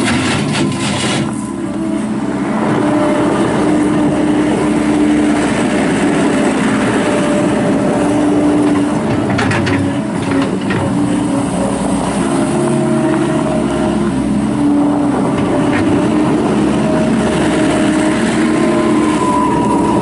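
Gehl R220 skid steer loader's diesel engine running steadily under load as the machine drives and works its bucket. Its pitch steps up and down a little with throttle and load.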